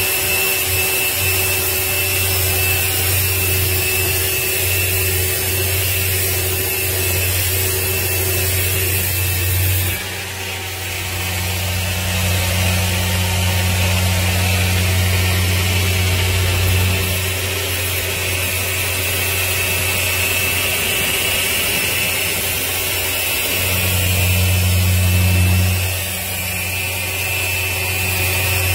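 Steady drone of an electric motor like a power tool running, a low hum with a thin high whine over it. Its loudness and tone shift about ten seconds in and again near the end.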